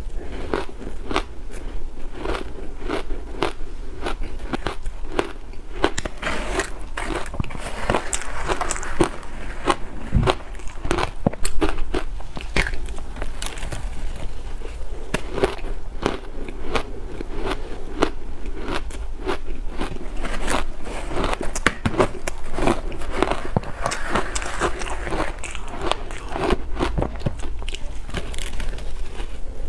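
Blender-shaved ice with milk powder being bitten off a spoon and chewed: dense, rapid crunching and crackling.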